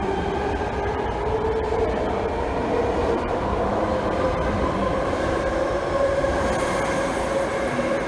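BART train pulling out of the station, its electric motors whining and slowly rising in pitch over the first few seconds before levelling off, over a steady rumble of wheels on rail.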